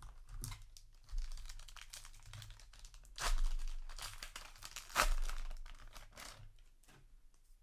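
A trading-card booster pack wrapper being torn open and crinkled by hand, with rustling throughout and two louder crackling tears about three and five seconds in.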